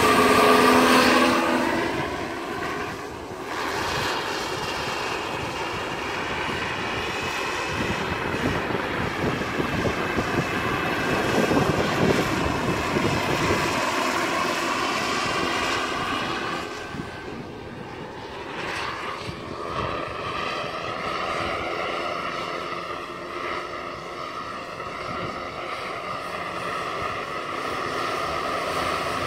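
Turbine-powered radio-controlled scale model helicopter (Vario EC-145) in flight: the small gas turbine's steady high whine over the whir of the rotors. It is loudest as the model passes close about a second in, with the pitch of the whine bending, then fades and swells as it circles.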